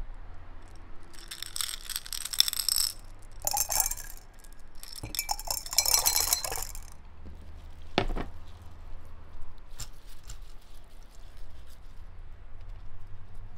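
Pearl beads rattling and clinking against glass as they are tipped from a cut-glass dish into a glass vase of water, in three bursts of clinking. A single knock follows about eight seconds in.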